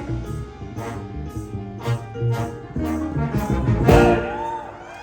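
Live jump-blues band playing the closing bars of a song: a four-trombone horn section over piano, drums and upright bass, with steady drum hits. A final loud accented hit about four seconds in rings off.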